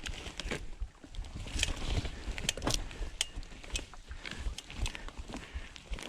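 Mountain bike rolling along a dirt singletrack: a low rumble of tyres over the ground with many irregular clicks, knocks and rattles from the bike.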